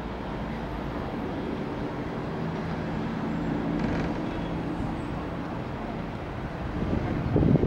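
Steady low mechanical hum with a few steady tones from a gondola cabin running along its haul cable. Wind starts buffeting the microphone near the end.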